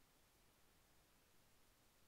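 Near silence: a faint, steady hiss of the recording's noise floor.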